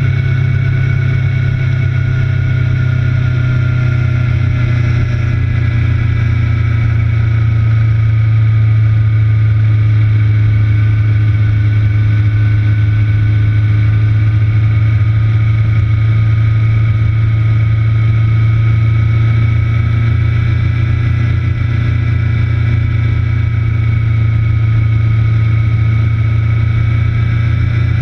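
A vehicle running at speed around a race circuit, heard from a low onboard mount: a loud, steady low drone of engine and road noise, with fainter higher tones that dip slowly and rise again and no sharp changes in revs.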